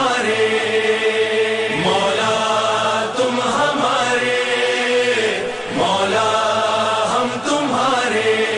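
A male voice chanting a Muharram noha, a lament for Imam Husain, in long held, wavering notes with short breaks between the lines.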